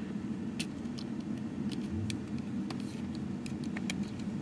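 Scattered light plastic clicks and taps as the small front wheels of a vacuum floor nozzle are handled and pressed back into place with fingers and a small screwdriver, over a steady low hum.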